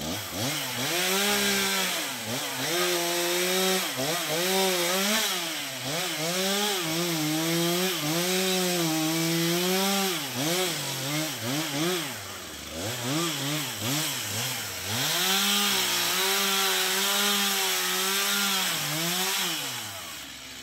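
Two-stroke chainsaw cutting black locust wood. The engine runs at high revs, and its note sags under load and rises again, dropping toward idle and revving back up every second or two.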